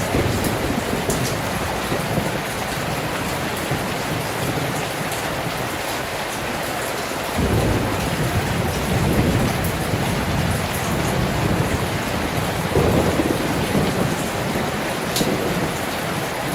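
Heavy rain falling steadily, heard from inside a room, with a deep low rumble of storm wind or thunder that swells up about seven seconds in and again near thirteen seconds.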